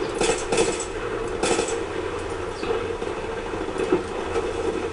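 First-person shooter game audio: a steady vehicle-engine hum under bursts of gunfire, with three bursts in the first second and a half and a single sharp report near four seconds.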